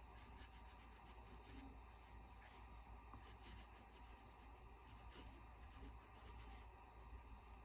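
Faint scratching and rubbing of a Rotring Art Pen fountain pen's nib moving across notebook paper in short writing strokes.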